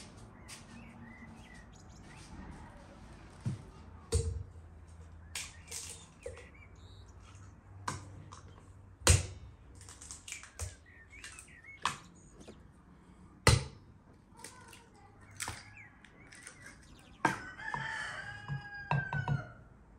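Sharp knocks of bowls and utensils being handled on a wooden table, the loudest about halfway through and again a few seconds later. Chickens call in the background, with a longer crow-like call near the end.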